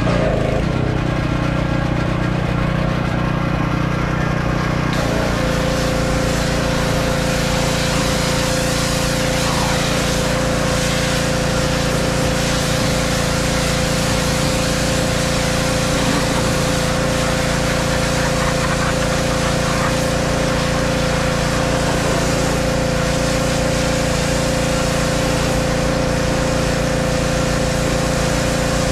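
Pressure washer running steadily, its motor and pump making a constant hum. About five seconds in the pitch of the hum shifts and a spray hiss starts as the wand begins spraying against the truck.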